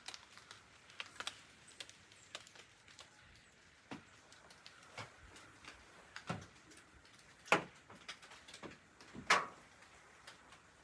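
Scattered light taps and clicks inside a small wooden hunting blind, with two louder knocks about seven and a half and nine seconds in.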